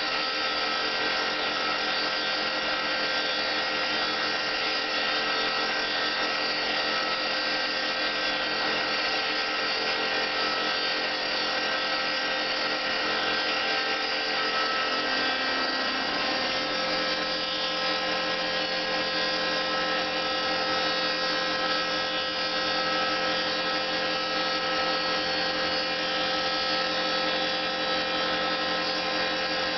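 Homemade CNC mill running a test program, its stepper motors and spindle giving a steady whine with many tones. The lower tones shift to a new pattern about halfway through.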